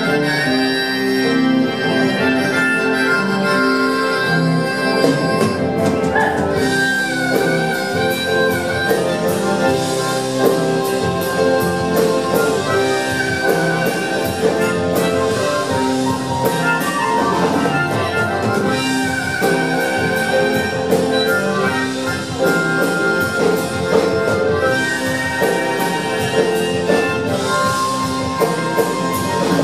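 Rock band playing live: a loud instrumental stretch with a held lead line over the band. The drums and cymbals come in fuller about six seconds in.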